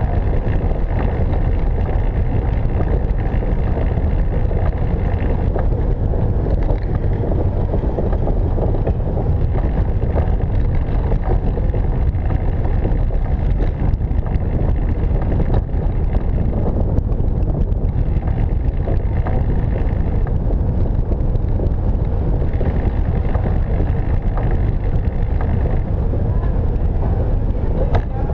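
Steady low road and rolling noise of a velomobile riding over city pavement, picked up by a camera on its nose fairing.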